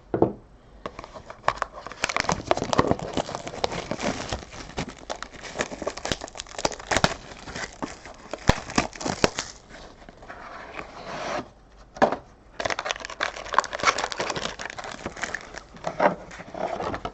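Trading-card box and pack being opened by hand: packaging crinkling and tearing, with scraping and sharp clicks, pausing briefly partway through.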